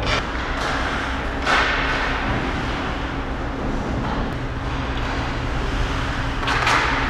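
Ice hockey play: skate blades scraping and hissing on the ice in short bursts, at the start, about a second and a half in and near the end, with a few light stick or puck clicks. A steady low hum runs underneath.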